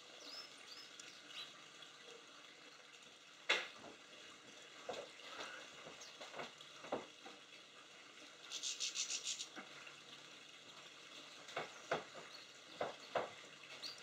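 Steady rain patter with sharp drop clicks now and then, most of them near the end, and a brief high twittering burst about two-thirds of the way through.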